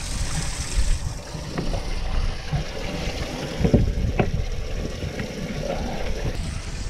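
Wind rumbling on the microphone aboard a bass boat, with a few knocks from movement on the boat's floor, the loudest two about four seconds in.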